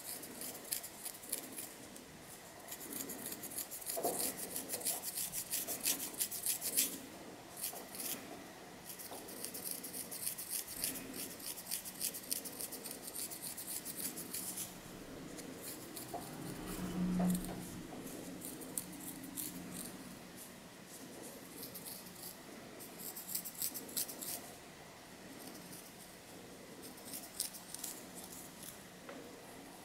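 Long fingernails scratching through hair on a dandruff-flaked scalp: fast runs of fine scratching strokes close to the microphone, heavier for stretches and lighter in between, with a brief low hum about halfway through.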